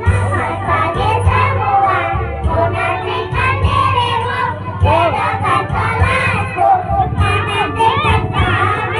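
A group of young children singing together loudly, close to shouting, many voices at once.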